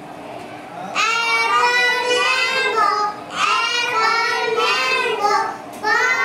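Young children singing a song together in high voices, in three phrases with short pauses between, starting about a second in.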